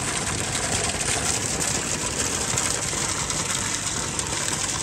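Steady rush of a stream of pond water pouring from a pipe outlet and splashing, with air bubbling up through the clear column of a home-made upflow filter.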